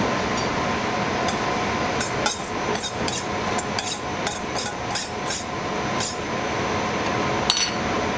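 Utensil clicking against a stainless steel mixing bowl as salad greens are tossed in it, a run of light quick clicks, then one sharper metallic clink near the end, over a steady background hum.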